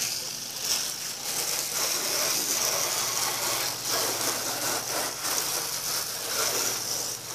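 Water jet from a garden-hose foam gun, its soap canister removed, spraying onto a pickup's hood and body panels to rinse off the foam: a steady hiss of spray and splashing that swells and eases a little as the stream moves.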